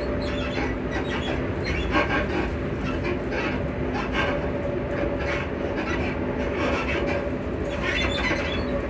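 Interior of a Class 334 electric multiple unit running at speed: a steady hum from the traction motors, with two held tones, over the rumble of the wheels on the track. A few brief clatters come from the wheels over rail joints.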